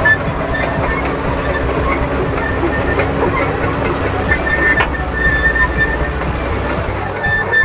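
Caterpillar D4H crawler bulldozer running under work, its diesel engine rumbling steadily while the steel tracks clank and squeal at intervals.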